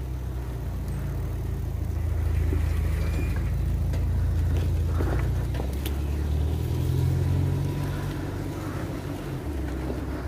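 Low, steady rumble with slow swells: wind and road noise during a bicycle ride along a road.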